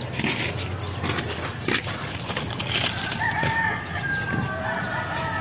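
A rooster crowing: one long drawn-out call, falling slightly in pitch, starts about three seconds in and runs on past the end, over a few sharp clicks and knocks.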